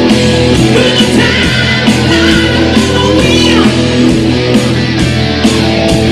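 Live rock band playing: electric guitar, bass guitar and drums with a steady beat, and a man singing lead into a microphone.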